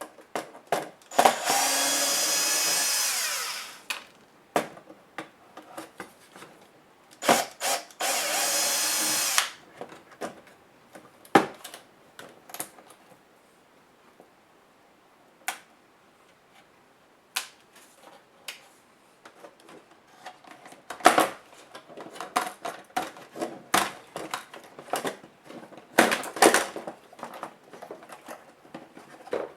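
Electric screwdriver whirring in two runs of about two seconds each, driving out laptop screws. Between the runs come many small clicks and knocks of screws and plastic parts being handled.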